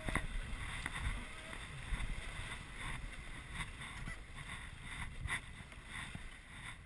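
Rafting paddles striking and splashing the choppy river water around an inflatable raft, in irregular strokes about once a second, over the steady rush of moving water and wind on the microphone.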